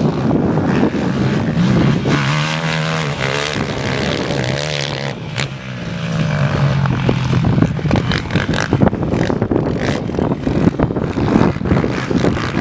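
Quad engines racing on a sand track, their pitch rising and falling with the throttle. The engine note dips briefly about five seconds in, then picks up again with a choppier, crackling sound.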